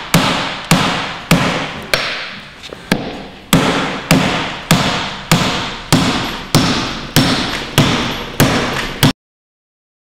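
Repeated hard blows on a high-security front door handle and door, about one every half-second, each with a short ringing decay. There is a brief pause about two seconds in, and the blows stop abruptly about nine seconds in.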